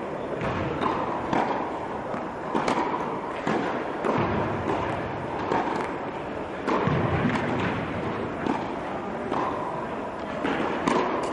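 Tennis balls struck by rackets and bouncing on an indoor court: a run of sharp, irregular thuds, about one a second, over the steady background noise of the hall.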